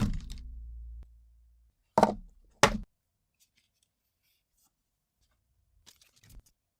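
Phone box being handled for unboxing: a low thud at the start, two sharp knocks about two seconds in, half a second apart, then faint light clicks near the end.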